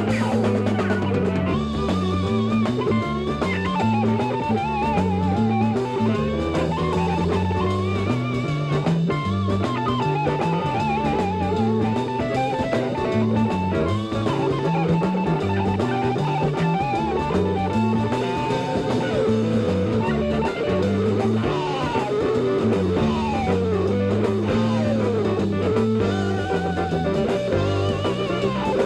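Rock band playing live: an electric guitar solo of held, wavering notes over a repeating bass line and drum kit, with sliding notes about two-thirds of the way through.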